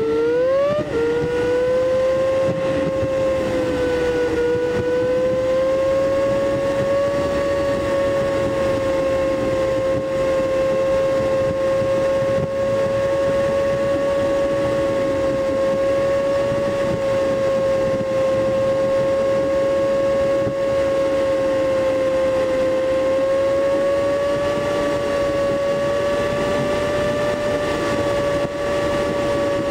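Smart Roadster Coupé's turbocharged three-cylinder engine, heard from inside the cabin at motorway cruising, played back at eight times speed so it sounds as a high, steady drone. The pitch climbs in the first second as the car accelerates, then holds nearly level with slight wavers.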